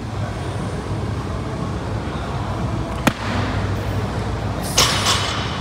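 Barbell snatch balance: a single sharp slap about three seconds in as the lifter's feet land on the wooden lifting platform, dropping under the bar into an overhead squat, then a short burst of noise near the end, over a steady low hum.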